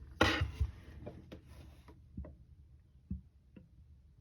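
Faucet and drain parts being handled: a short rustle and knock just after the start, then a few light, separate clicks and taps.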